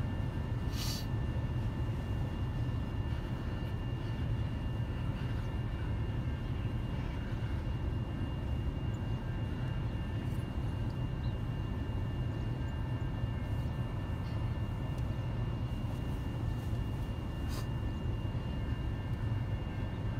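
Freight train cars rolling past a level crossing, heard from inside a car: a steady low rumble of wheels on rail, with two sharp knocks, one about a second in and one near the end.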